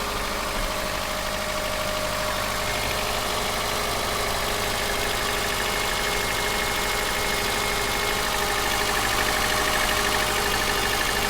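Subaru EJ203 2.0-litre flat-four engine idling steadily after a cold start. Its cold-start knock, a light rattle from the engine, is fading out and barely audible as the engine warms up.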